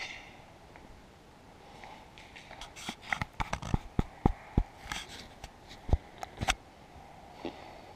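A cluster of sharp knocks and clicks, a dozen or so over about four seconds, from the GoPro action camera and its mount being handled and repositioned.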